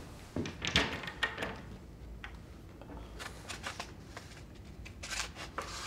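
Sheets of paper rustling as pages are turned and leafed through, in several short bursts.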